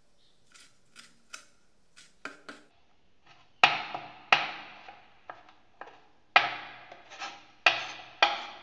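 Chef's knife chopping fresh coriander leaves on a wooden cutting board. A few faint light ticks come first, then from about three and a half seconds in the blade strikes the board in sharp, uneven knocks, about eight of them, each dying away briefly.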